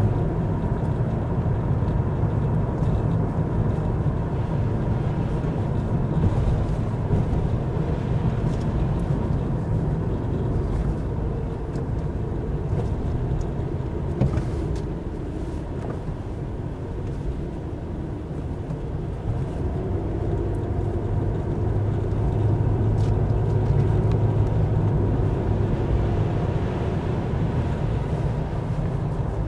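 Steady road noise inside a Chevy Impala's cabin: engine and tyres rumbling low on wet pavement. It drops off for a few seconds around the middle of a hairpin bend and then builds again.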